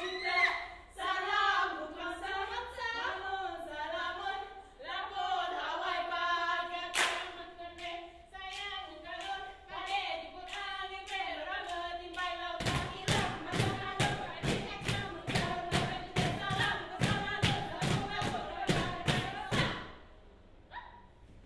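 Kneeling dancers singing together in unison, a chant-like group song. Past the halfway mark, fast, even hand slaps and claps on their bodies join in at about four a second. Singing and slapping both stop shortly before the end.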